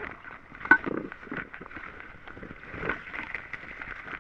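A bag being shaken and tipped out, tumbling live yabbies onto dry dirt: fabric rustling with a scatter of light knocks and scrabbles. The sharpest knock comes about three-quarters of a second in, and another comes near three seconds.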